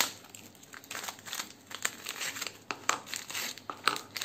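An Oreo packet's plastic wrapper with its foil lining crinkling in irregular crackles as biscuits are pulled out of the opened pack.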